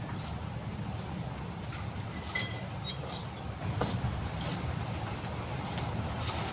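Steady low rumble with a few scattered knocks and one short ringing metal clink about two and a half seconds in.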